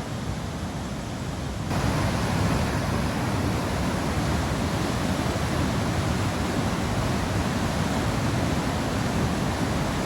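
Rushing water of a river waterfall, a steady noise that gets suddenly louder a couple of seconds in.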